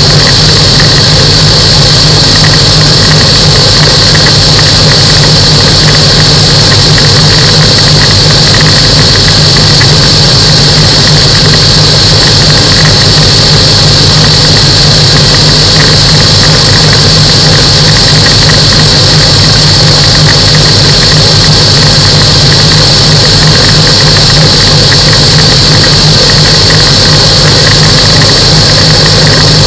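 Microlight aircraft's engine and propeller running steadily in flight. A loud, unchanging drone has a constant high whine above it.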